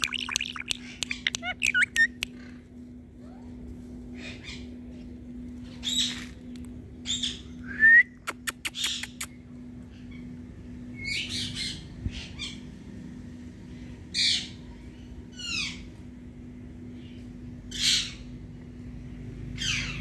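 Indian ringneck parakeet squawking and chirping: a quick run of high chirps and clicks at the start, then short separate calls every second or two, several sliding down in pitch.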